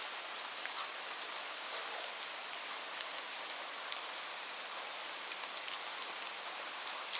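Light rain falling steadily, an even hiss of rain with scattered sharp ticks of individual drops hitting a surface.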